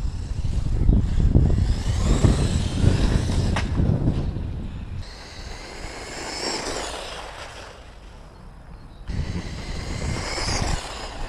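Brushless electric motor of a Traxxas 1/16 E-Revo RC truck whining, rising and falling in pitch several times as the truck speeds up and slows down. A heavy low rumble runs under the first half, and there is a single sharp click about three and a half seconds in.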